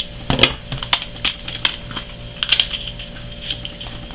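Silver bullion rounds clicking and clinking against each other as they are handled and counted: a quick, irregular run of sharp clicks, thinning out near the end.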